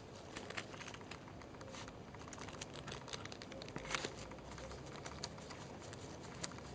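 A puppy digging in loose garden soil with its front paws: faint, quick, irregular scratches and ticks of claws and scattering earth, the loudest a little before the middle.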